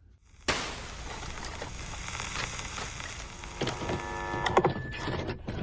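Retro VHS tape-player sound effect: a hiss of tape static that cuts in suddenly, with mechanical whirring and clicks and a brief whine about four seconds in.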